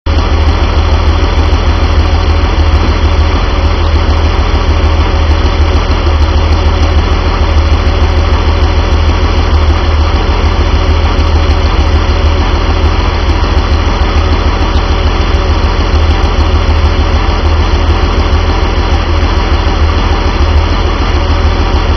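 Rebuilt 1974 Porsche 911 2.7-litre air-cooled flat-six running steadily on an engine stand through its muffler, with no revving.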